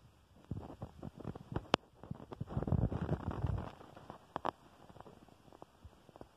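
Handling noise from a hand-held recording device: scattered clicks and rustles, with a louder muffled rumble in the middle and a couple more clicks a second later.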